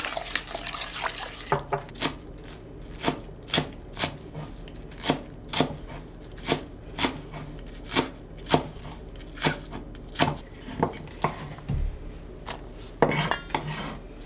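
Kitchen knife chopping green onions on a wooden cutting board, a steady run of sharp chops about two a second. Just before the chopping starts, a spoon scrapes briefly as it stirs sauce in a stainless steel bowl.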